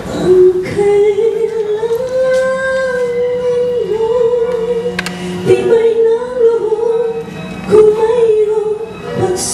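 A woman singing a Tagalog ballad into a microphone, holding long notes with vibrato over a soft instrumental accompaniment.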